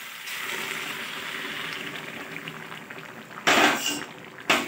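Hot water poured from a steel jug into a steel kadai of frying vegetable curry, sizzling and bubbling as it hits the hot pan. Two loud, brief noises come near the end.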